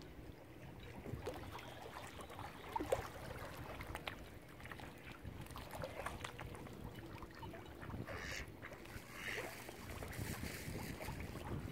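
Ducks calling a few times over a steady low rumble, with short calls about three seconds in and two more near the end.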